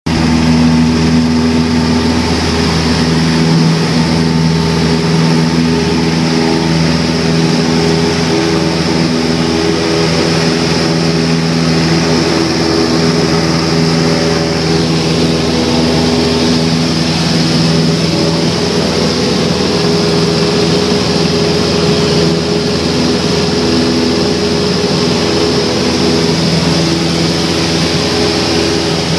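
Single-engine light aircraft's piston engine and propeller running at takeoff power, heard from inside the cabin as a loud, steady drone through the takeoff roll and climb-out.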